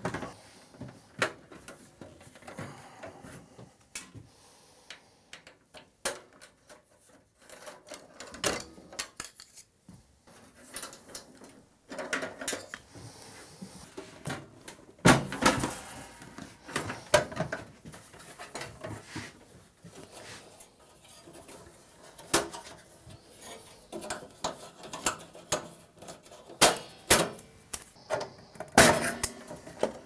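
Irregular clicks, knocks and clatter of a PowerMac G4 case being taken apart by hand: a screwdriver working at its screws, and its panels being lifted off and set down. The loudest knocks come about halfway through and near the end.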